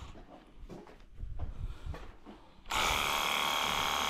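Ingco 20 V cordless pressure washer paused, with a few handling knocks, then starting up suddenly about two-thirds of the way in and running steadily as it sprays soapy foam through its bottle foam attachment.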